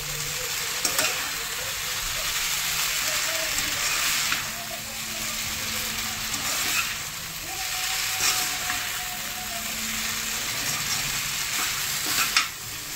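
Noodles and vegetables sizzling in a hot wok as they are tossed and stirred with a metal spatula and spoon. There are a few brief scrapes of the utensils against the pan.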